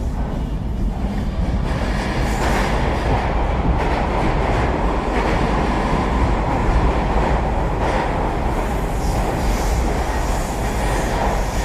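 Indian Railways train running along the track: a steady, loud rumble of wheels on rails with a few faint knocks from the wheels over the rails.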